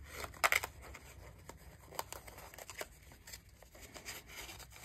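Cardstock flaps of a handmade mini envelope being folded and tucked closed by hand: irregular paper rustling and light crinkling, with a louder rustle about half a second in.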